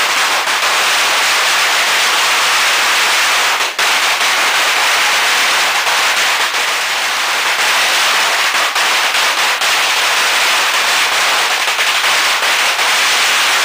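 A long roll of all-red Chinese firecrackers going off in a continuous, rapid crackle of bangs, with one brief lull about four seconds in.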